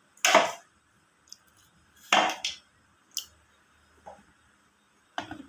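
A few sharp clinks and knocks of a spoon or ladle against a pot and bowl as the raw-mango drink is served into a bowl.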